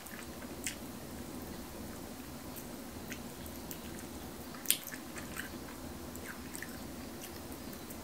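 A person chewing and biting into chicken wings close to the microphone, with scattered short wet mouth clicks and smacks, the sharpest about four and a half seconds in, over a steady low hum.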